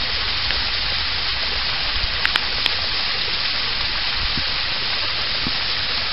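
Return jet of an Intex saltwater-system filter pump blasting water into a pool, a steady splashing rush, with a couple of light clicks a little past two seconds in.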